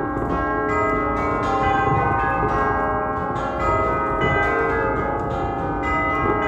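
A peal of eight tubular church bells playing a tune, struck one note at a time at about two to three notes a second, each note ringing on and overlapping the next.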